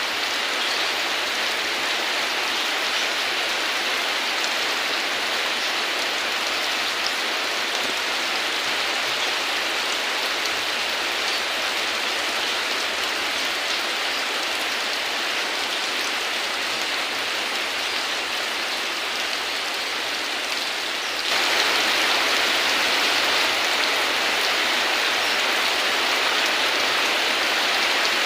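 Steady heavy rain falling, an even hiss with no thunder. About three-quarters of the way through it suddenly gets louder and stays so.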